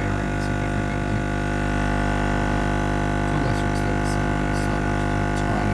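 ACO-2206 electromagnetic diaphragm aquarium air pump running: a steady buzzing hum with many even overtones, and a few faint clicks about halfway through. Its plunger arm has just been bent straighter but still slightly touches on one side.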